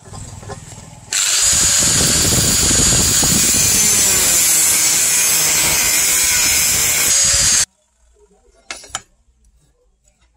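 Electric angle grinder with a cutoff disc cutting through a steel chainsaw guide bar: a loud, steady grinding with a high whine. It starts sharply about a second in and stops abruptly about six and a half seconds later. A couple of light knocks follow near the end.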